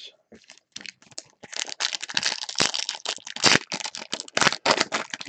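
Foil Topps Chrome trading-card pack being torn open and its wrapper crinkled by gloved hands: irregular crackles, sparse at first, then a dense run from about a second and a half in.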